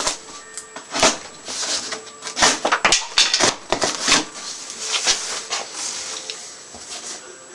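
Cardboard box and packaging being cut open and handled: irregular bursts of rustling and scraping, busier in the first few seconds and quieter toward the end.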